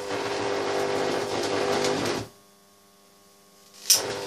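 High-voltage arc from two series-connected potential transformers ballasted with microwave-oven transformers, buzzing with a strong mains hum. It cuts out abruptly about two seconds in, then comes back with a sharp snap near the end.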